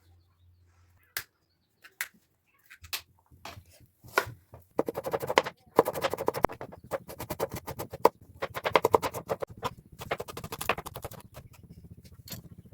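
Rapid rhythmic clicking and tapping of a kitchen utensil during food preparation: a few separate knocks at first, then a fast, steady run of several strokes a second from about five seconds in until near the end.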